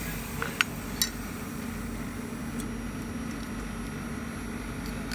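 A few sharp metal clinks as a welded aluminium sheet is handled and set down, all within the first second or so, over a steady low machine hum.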